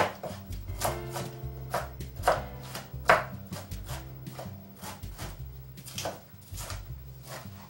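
Kitchen knife chopping broccoli on a wooden cutting board: a series of sharp, irregular strikes, about one or two a second.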